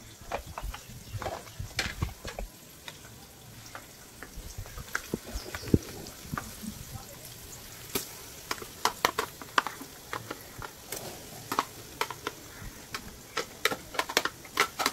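A metal slotted spoon stirring onions and ginger-garlic paste in an aluminium pot, with irregular clinks and taps against the pot over a faint sizzle of frying.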